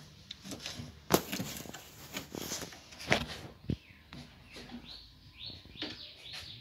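Knife cutting squid into rings on a cutting board, with a few sharp knocks of the blade on the board, the loudest about one and three seconds in. Short high squeaks come in the second half.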